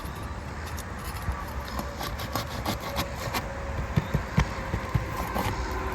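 Nail-pulling tool clicking and clinking against roofing nails and asphalt shingles as nails are worked out, a scatter of sharp knocks that grows busier after about two seconds, over a steady low rumble.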